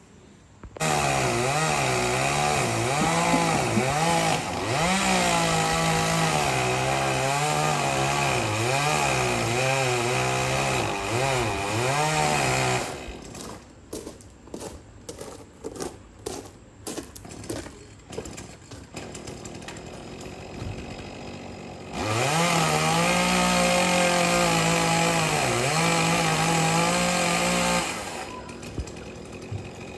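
Two-stroke chainsaw running at high revs and cutting, its pitch dipping and recovering under load, for about twelve seconds. It drops away to a quieter stretch with a run of sharp knocks, then revs and cuts again for about six seconds.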